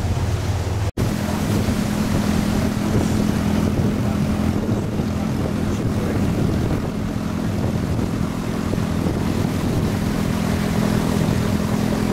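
Riverboat engine running with a steady drone, over the rush and splash of water churning along the moving hull. The sound cuts out for an instant about a second in, and the engine note is higher after it.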